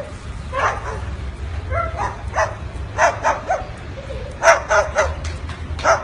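Short, dog-like yapping barks, about a dozen of them in loose pairs and threes.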